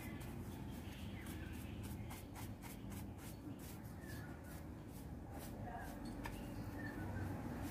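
Faint, irregular scratchy rubbing and scraping strokes: sand and soil being cleaned off a sprouted coconut by hand.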